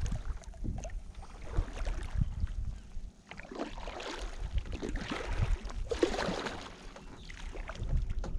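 Kayak paddle strokes dipping and splashing in calm water, a swell of splash every second or two, over a low rumble of wind on the microphone.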